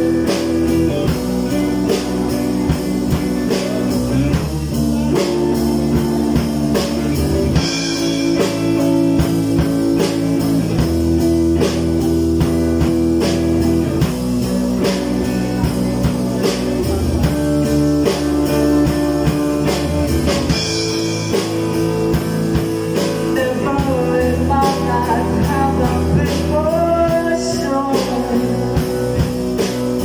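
Small rock band playing live: drum kit, electric bass and guitar, with a harmonica played into the vocal microphone over the instrumental passage. Bending melody lines come in during the last third.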